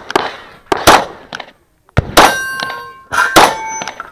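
A string of 9 mm shots from a Kahr CW9 pistol, about six in four seconds. After two of them, steel popper targets clang and ring on.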